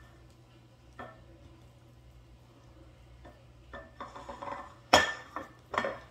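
Glass bowls knocking and clinking as they are handled: a light knock about a second in, some scraping and rustling around four seconds, then two loud clunks near the end, the first the loudest.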